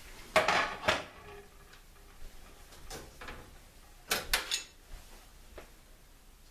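Kitchen clatter of a slow cooker's lid being handled: two short bursts of knocks and scrapes, about half a second in and again about four seconds in, with a few lighter clicks between.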